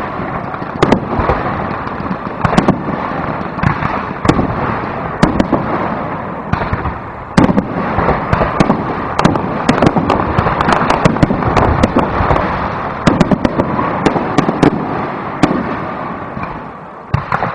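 Aerial fireworks display: a rapid, irregular string of shell bursts and sharp bangs over continuous crackling, thickest in the middle.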